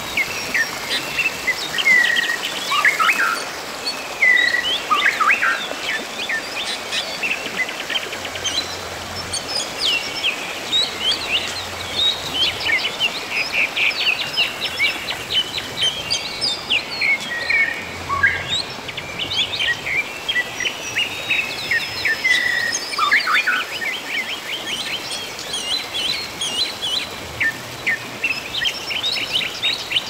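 Several wild birds chirping and calling at once: quick chirps and short whistled notes, some sliding down in pitch, over a steady rush of running water.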